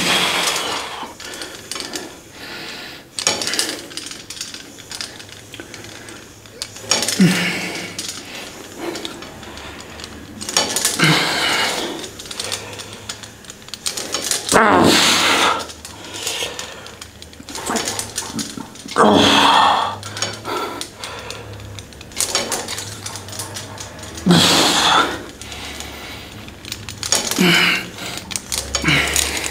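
A person breathing out hard, in about eight heavy breaths three to five seconds apart, over a faint low hum.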